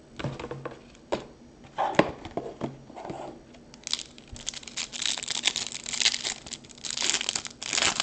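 Plastic wrapping of a trading-card pack crinkling and being torn open by hand, with a sharp snap about two seconds in and almost unbroken crinkling in the second half.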